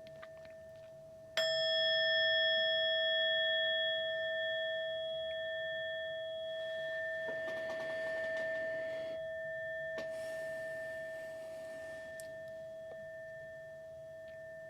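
A meditation bell struck once about a second and a half in, over the fading tone of an earlier strike. It rings on in a few steady, clear tones that slowly die away. This is the second of two bells, the signal to move on to the next part of the practice.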